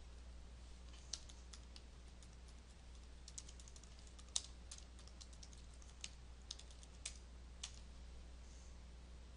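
Faint, irregular keystrokes on a computer keyboard, about a dozen spread over several seconds, with one louder key near the middle, over a steady low hum.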